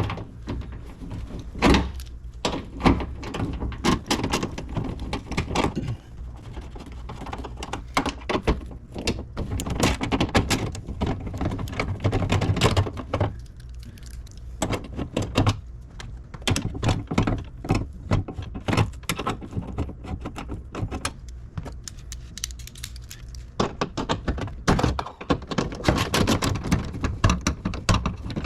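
Ratchet and 10 mm socket unbolting a power window regulator inside a car door: irregular clicking, knocking and clanking of metal tool and parts against the door shell.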